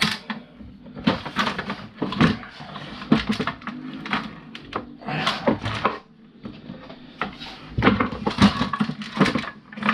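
Irregular clattering and knocking of plastic and metal fuse board parts being handled and pulled apart, with a few louder clusters of knocks about five seconds in and toward the end.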